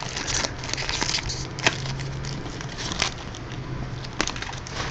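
Light crinkles and scattered clicks of trading-card pack wrappers and cards being handled, with one sharper click about four seconds in.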